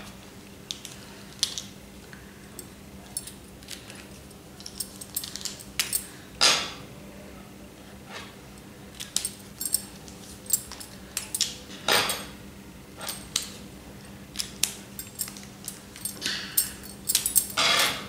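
Felt-tip pens being handled: scattered sharp clicks and light plastic clatter as pen caps come off and on and pens knock together. Near the end comes a short scratchy stretch, a pen tip drawing on paper.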